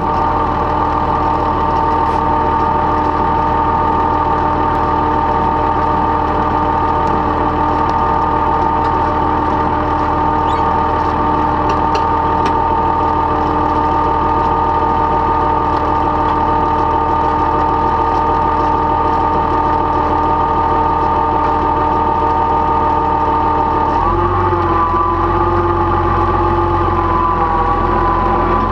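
Old tractor engine running steadily at idle. Near the end the engine note changes and a deeper rumble grows heavier.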